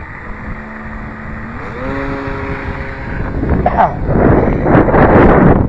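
Electric motor of a Skyartec Cessna 182 radio-controlled model plane whining steadily, stepping up in pitch about two seconds in. From about three seconds, louder wind noise on the microphone takes over.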